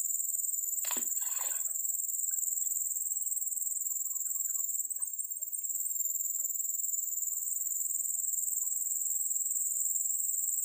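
A steady, high-pitched chorus of insects shrilling without a break. About a second in, one short sharp sound cuts across it.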